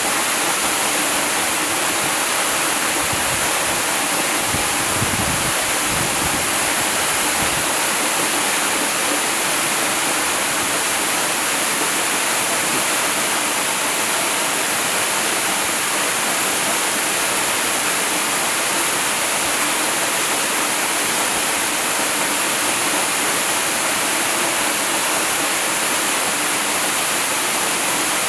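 Waterfall: falling water rushing steadily, with no change in level.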